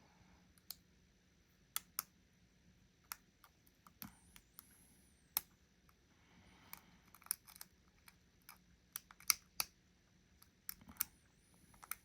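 Lock pick and tension wrench working inside a custom challenge lock: irregular sharp metallic clicks and ticks at uneven intervals, some in quick pairs, with faint scraping between them.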